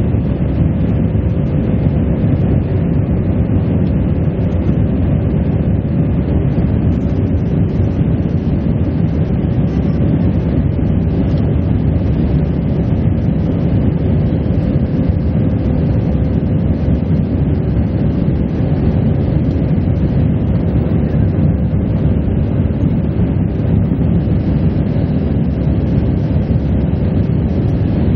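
Airbus A319 cabin noise in flight shortly after takeoff: the steady, low rumble of the engines and rushing air heard from inside the cabin, with a faint steady hum running through it.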